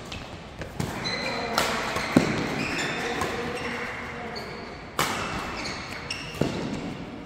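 Badminton doubles rally: rackets strike the shuttlecock with sharp cracks, several in quick succession and a hard hit about five seconds in, while court shoes squeak in short high chirps on the synthetic court mat. The hall's echo trails each hit.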